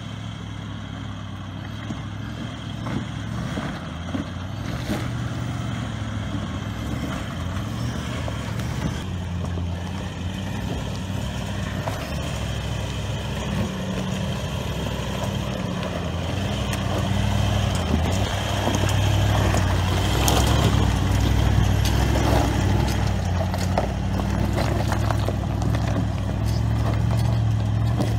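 Toyota LandCruiser 200 Series engine running at low revs as the 4WD crawls down a loose rocky track, with tyres crunching and clicking over stones. It grows louder as the vehicle nears and is loudest from about two-thirds of the way through.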